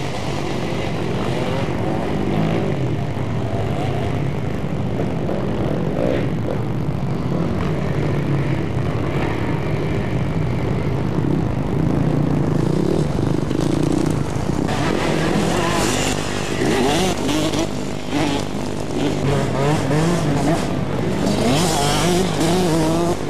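Enduro dirt bike engines revving up and down as the riders ride the off-road course, with busier, rising and falling revving from about fifteen seconds in.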